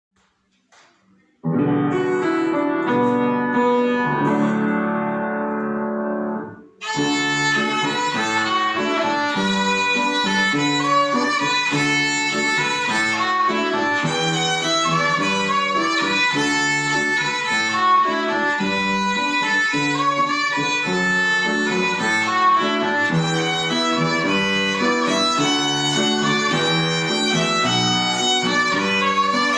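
Violin playing a piece: a short opening phrase, a brief break about six and a half seconds in, then a long run of quick notes.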